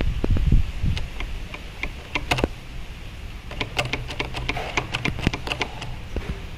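Irregular light clicks and taps of hands and tools working on a motorcycle's front brake master cylinder, with a low rumble in the first second.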